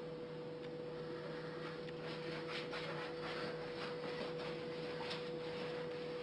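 A cotton cloth wiping over kitchen wall tiles, heard as a few soft, irregular rubbing strokes over a steady hum.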